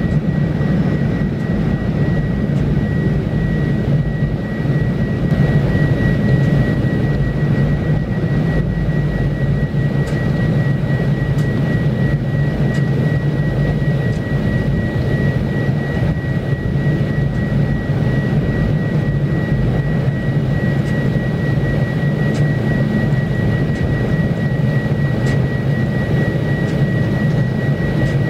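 A steady low engine-like drone with a constant thin high-pitched whine over it, unbroken throughout.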